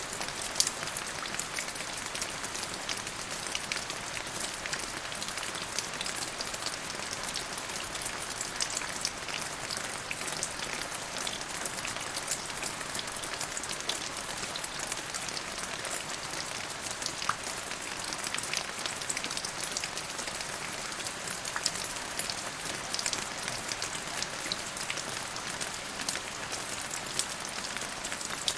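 Steady rain falling, with many close, sharp drop impacts ticking over an even patter.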